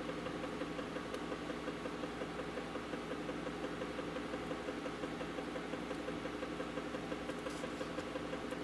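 Magnetic stirrer running under a jar of electroplating bath: a steady motor hum with a faint rapid flutter. A few light ticks come near the end.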